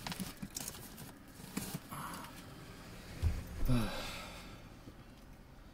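A man sighing: a long out-breath whose pitch falls, about three and a half seconds in, just after a low thump. Small clicks and rustles come before it.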